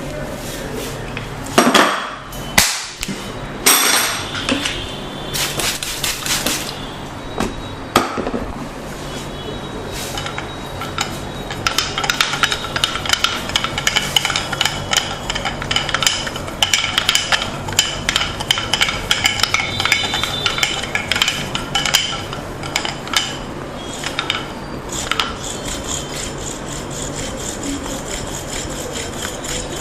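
Wooden massage tools tapping: a few loud separate knocks in the first seconds, then a long run of fast, light knocks, each with a short woody ring, that thins out near the end.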